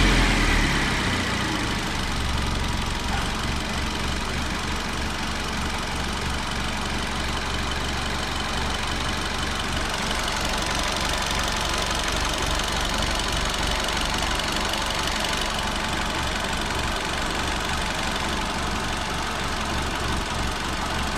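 Hyundai i10's four-cylinder petrol engine settling back from a rev in the first second, then idling steadily. It has a misfire: one cylinder intermittently fails to fire, giving an occasional jerk in the running.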